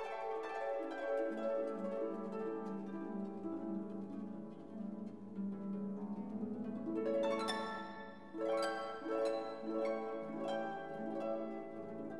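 Background instrumental music of plucked notes, one after another, each ringing briefly.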